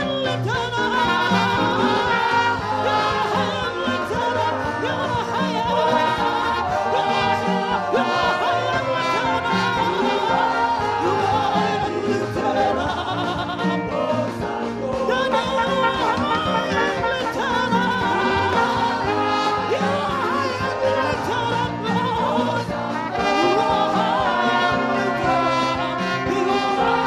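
Live gospel praise music: voices singing over a band with a steady, repeating bass line.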